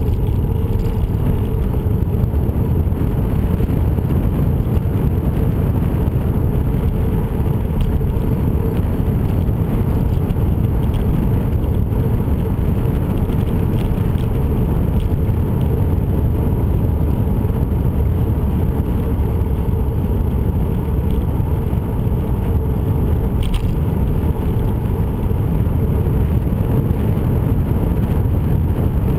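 Steady low wind rumble on the microphone of a camera moving along a paved trail, mixed with the hiss of travel over the asphalt.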